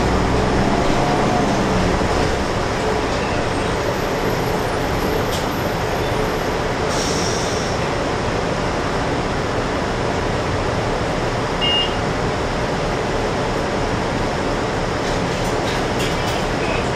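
Steady interior noise inside a city transit bus, from its engine and the road, as it slows and stands at a stop. A brief high-pitched beep sounds about twelve seconds in.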